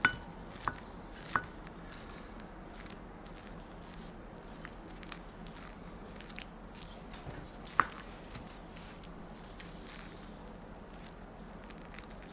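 Wooden spoon stirring and scraping through fried rice and a fried egg in a ceramic bowl: soft squishing and small clicks, with a few sharp knocks of the spoon on the bowl. The knocks come at the very start, twice in the next second and a half, and loudest about eight seconds in.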